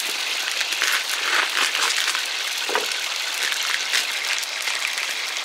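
Hot canola oil crackling and spitting in a pot on a camp burner as wet snow falls into it, with paper crinkling as a bag of breading is opened.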